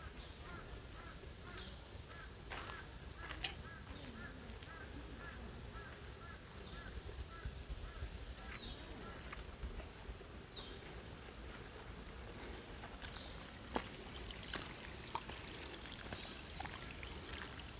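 Outdoor ambience with birds calling. For the first half, a bird gives a rapid series of short repeated chirps, about three a second, with scattered higher falling calls throughout. A few sharp clicks come through over a steady low rumble.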